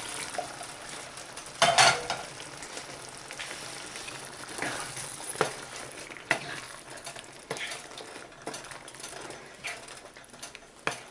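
Chickpea curry sizzling in a pot as a spoon stirs it, clicking against the pot every second or so, with a louder burst of sizzle and clatter about two seconds in.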